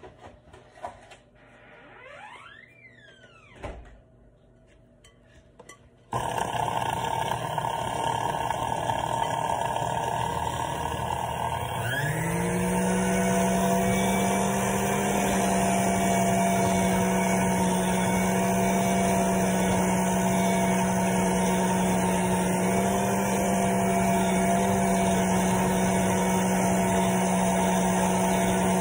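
A steady rushing noise starts suddenly about six seconds in. About twelve seconds in, an electric kitchen motor spins up, rising in pitch, and settles into a steady hum that keeps running.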